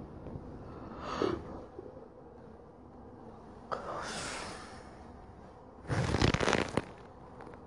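Honeybees humming steadily over an open hive, broken by three short rushes of breathy noise; the loudest, about six seconds in, lasts nearly a second.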